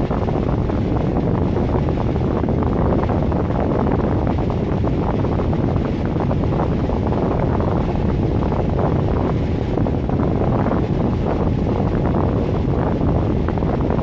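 Miller E3 furnace's squirrel-cage blower running steadily: an even rush of moving air and motor noise with no change in level.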